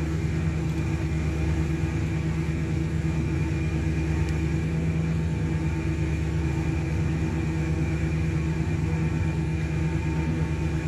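Steady drone of a running machine: a constant low hum with a few steady higher tones, unchanging throughout.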